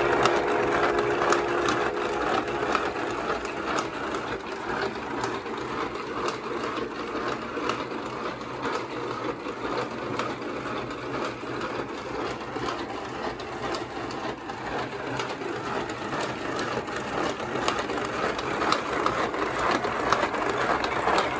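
Wooden model engine running under electric-motor drive, its wooden chain, sprockets and moving parts making a steady clatter full of rapid small clicks that grows a little louder near the end.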